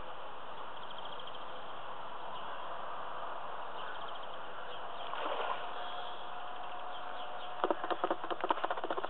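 Steady outdoor hiss with faint bird chirps. A steady hum joins about halfway, and near the end comes a rapid flurry of sharp knocks and rustles.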